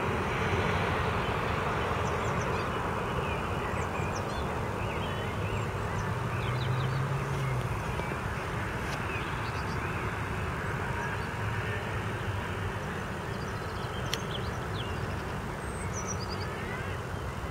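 Jet engines of a twin-engine airliner on final approach, a steady rushing drone that slowly fades as the aircraft descends away toward the runway.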